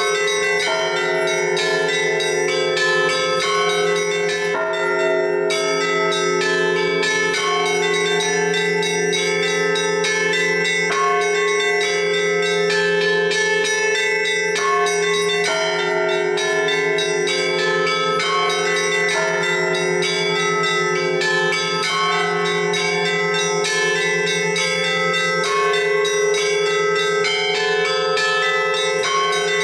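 Russian Orthodox church bells rung by hand in a continuous chime. The small bells strike quick, repeating rhythmic figures over the steady hum of the larger bells.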